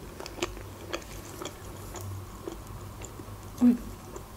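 Soft close-up chewing of a sweet with closed lips: faint wet mouth clicks, a couple a second. There is a short hum a little before the end.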